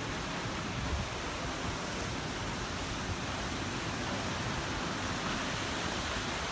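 Hurricane winds blowing steadily through trees, an even rushing noise with wind buffeting the phone's microphone in low rumbles.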